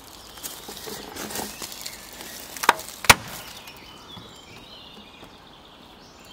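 Close rustling and handling movement, with two sharp knocks about half a second apart near the middle, the loudest sounds here.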